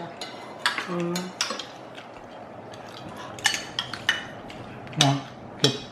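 Forks and spoons clinking and scraping against plates and black hot plates while people eat, as scattered short taps and scrapes with pauses between them.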